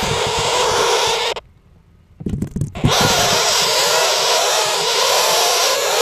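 Nestling northern flickers buzzing and hissing without a break, heard up close from inside their tree-cavity nest. The sound cuts out for under a second about a second and a half in, and a few low knocks against the rotten wood come as it returns.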